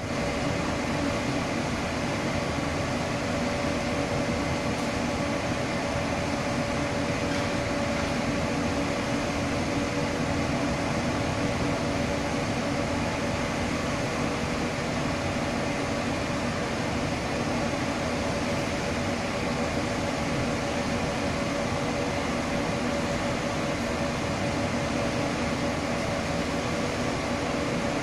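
Steady mechanical drone of building machinery: a constant hum with several fixed pitches over an even whirring noise. It is the intrusive noise being recorded as noise pollution.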